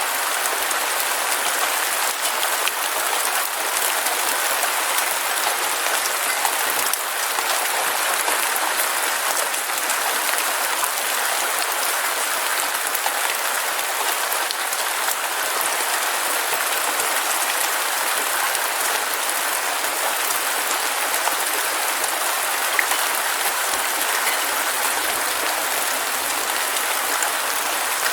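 Heavy rain falling steadily, a dense even hiss of drops with no let-up.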